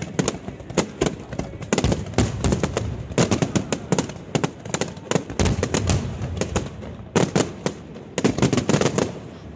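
A barrage of aerial firework shells bursting, sharp bangs coming several a second in uneven clusters.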